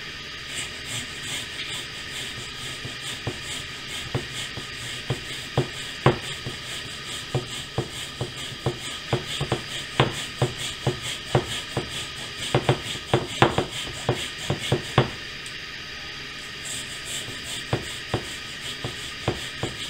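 Onion being grated on a handheld flat rasp grater: uneven scraping strokes, about two a second, pausing briefly about three-quarters of the way through and then starting again.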